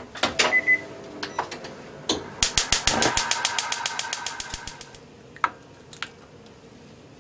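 Metal cookware clanking, with a brief ring, as a stainless pot, ladle and frying pan are handled. Then comes a rapid, even ticking, about ten ticks a second for a couple of seconds, over a ringing metal tone, followed by two single clicks.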